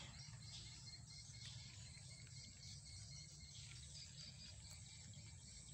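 Near silence: faint outdoor background with a steady low rumble and a thin high hiss.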